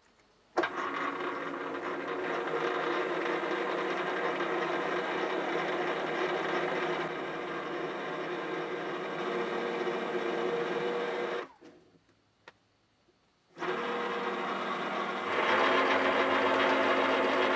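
Small school-type metalworking machine tool running, its electric motor and gearing giving a steady hum with a high thin whine. It stops about eleven seconds in, and after a short pause with a single click it starts again and gets louder a couple of seconds later.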